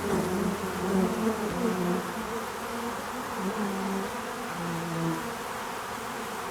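Flying insects buzzing, several drones at once, their pitch wavering and gliding up and down as they move.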